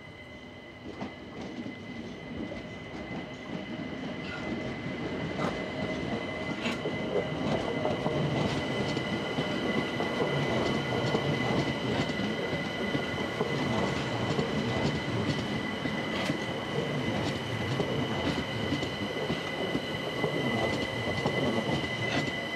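London Overground Class 378 electric multiple unit running slowly round curved track and passing close by. The rumble grows louder over the first several seconds and then holds, with a steady high-pitched wheel squeal and occasional sharp clicks as the wheels cross joints and points.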